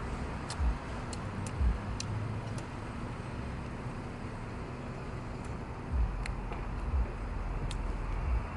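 A person chewing a bite of grilled beef satay close to the microphone: scattered wet mouth clicks, several in the first few seconds and fewer later, over a steady low rumble of outdoor traffic noise, with a few low thumps near the end.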